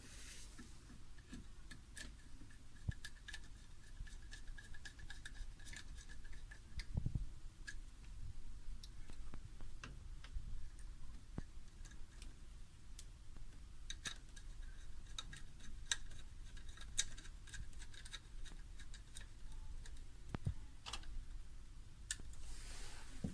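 Faint, irregular small clicks and taps over a low background hum.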